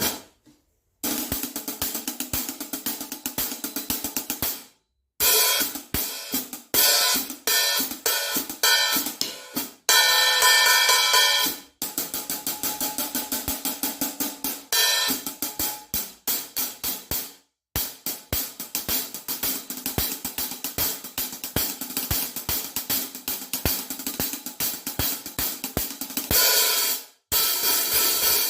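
14-inch Omete Mercury hi-hats being played in quick, even strokes, mostly tight and ticking, opened now and then into a louder sustained wash. The playing stops briefly about four times between passages.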